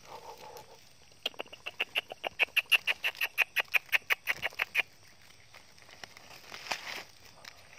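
An animal calling: a rapid, even run of about two dozen short, high-pitched chirps, some seven a second, starting about a second in, growing louder and stopping near the middle. Faint rustling of dry leaves fills the rest.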